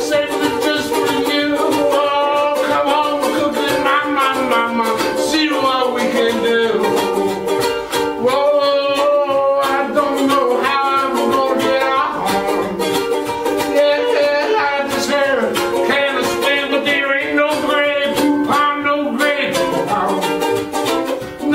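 A ukulele strummed steadily while a man sings along.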